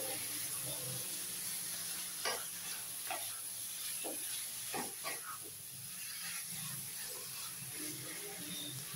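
Raw chicken pieces and masala sizzling in a nonstick kadai as they are sautéed, with a wooden spatula stirring and scraping through them; a handful of sharp spatula scrapes and knocks stand out in the middle.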